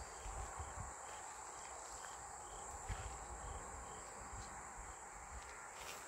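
Outdoor insect chorus: a faint, high, steady insect trill with a slower, regular pulsing chirp under it, over a low uneven rumble.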